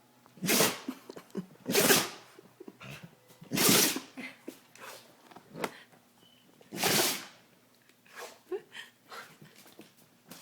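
A dog sneezing four times, each a short, sharp burst of noise: the first three about a second and a half apart, the last about three seconds later, with softer small noises between.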